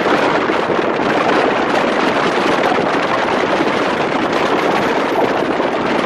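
Steady loud rush of wind and road noise from a car moving along a road, the microphone held out of the open side window.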